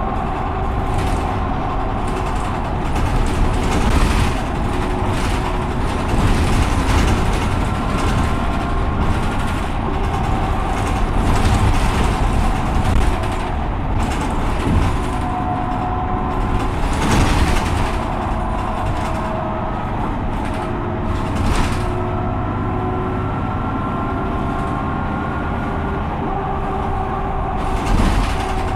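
Mercedes-Benz O530 Citaro city bus with a ZF Ecomat automatic gearbox, driving along. The engine drones steadily and its pitch rises and falls as the bus changes speed and gear. Three brief louder noises come in the second half.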